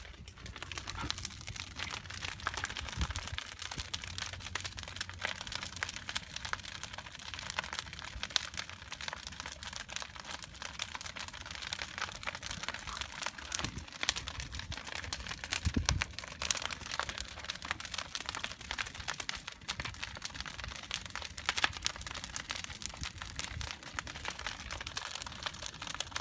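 Large wood bonfire crackling and popping in a dense, continuous stream of small snaps, with a few sharper pops along the way.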